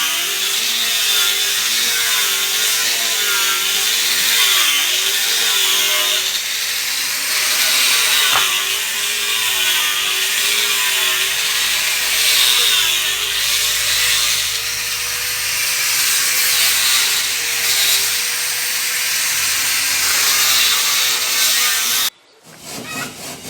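Handheld electric power tool running under load on wood, its motor whine wavering up and down in pitch over a harsh hiss. It cuts off abruptly near the end.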